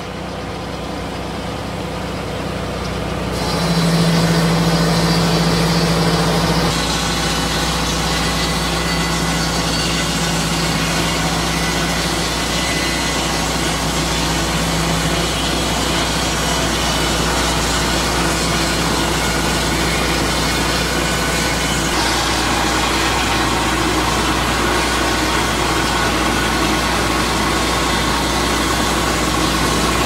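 Petrol engine of a Lucas portable swing-blade sawmill running steadily as the circular blade cuts a board from a log. The sound grows louder about three seconds in.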